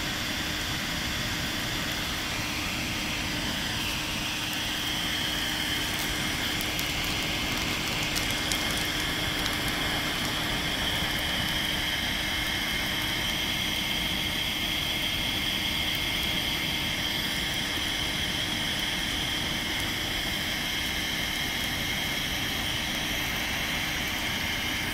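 Bonfire of cut pine branches and logs burning: a steady rush of flames with a hiss and occasional crackles and pops.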